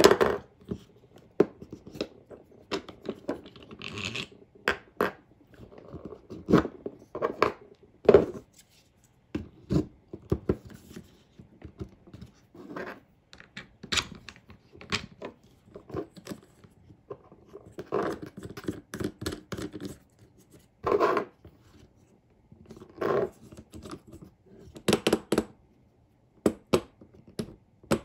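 Hard plastic parts of a GoPro suction cup mount being handled and fitted together: irregular clicks, knocks and scrapes of plastic on plastic and on the tabletop.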